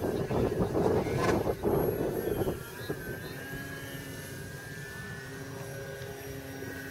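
Brushless electric motor and propeller of a Multiplex FunCub RC plane flying overhead, a steady whine that is clear in the second half. A loud rushing, crackling noise covers the first two and a half seconds.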